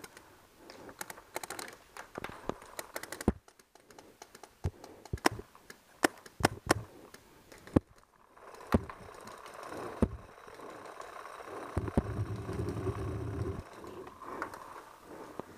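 Paintball markers firing around the field: scattered sharp pops and a few quick strings of rapid shots. A low rumbling stretch comes in a little after the middle.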